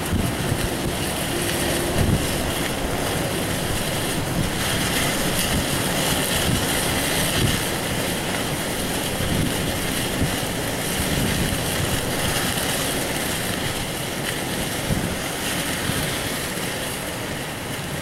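Strong, gusty wind of a snow squall rushing steadily, buffeting the microphone with uneven low thumps.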